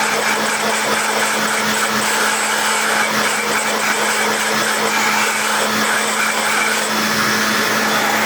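Battery-powered garden blower running steadily at full power, a rush of air over a steady motor hum, blowing fine dust out of a stick vacuum's main unit.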